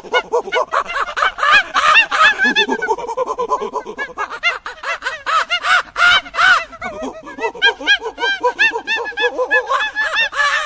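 A group of macaques calling: many short calls that rise and fall in pitch, overlapping several per second.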